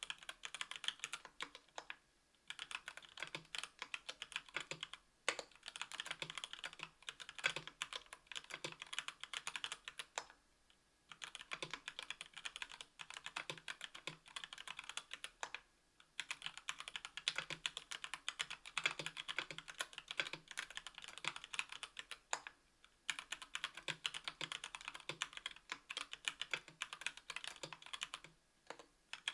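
Typing on a KBDfans Tofu 60% aluminium keyboard fitted with stock Gateron Red Ink linear switches (45 g) on an aluminium plate, with GMK keycaps. Quick runs of keystrokes are broken by brief pauses every few seconds.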